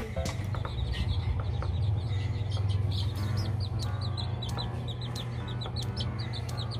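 Serama chick, about three weeks old, peeping: a steady run of short, high, falling peeps, about four a second.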